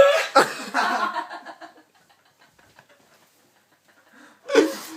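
Laughter dying away over the first two seconds, then, after a lull, one sudden loud hiccup about four and a half seconds in.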